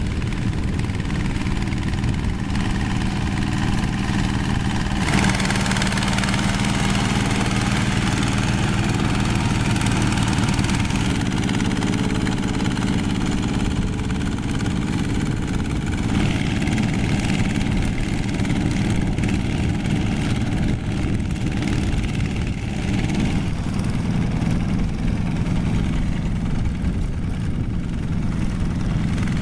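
Single-cylinder diesel engines of two-wheel hand tractors running steadily while tilling a flooded rice field, with more high-pitched clatter from about five seconds in.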